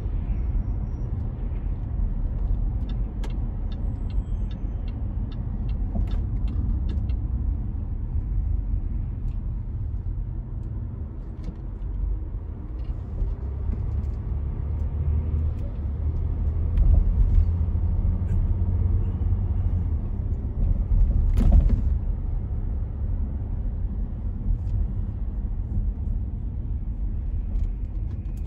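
Car driving, heard from inside the cabin: a steady low rumble of engine and road noise. A run of light, evenly spaced ticks comes a few seconds in, and a single sharp click about twenty-one seconds in.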